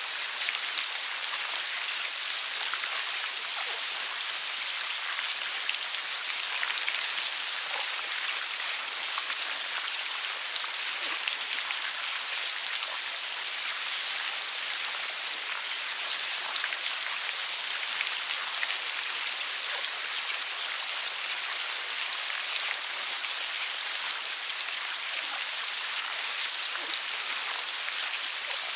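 Many maggots crawling through sawdust, heard as a steady, fine crackling hiss made of many tiny ticks.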